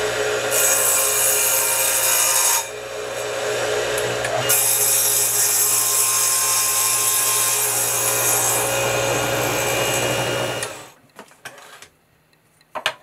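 Small benchtop table saw running steadily while wood blocks are pushed through the blade in two cuts: a short one about half a second to two and a half seconds in, and a longer one from about four and a half seconds until near eleven seconds. The saw then stops, and a few light clicks follow near the end.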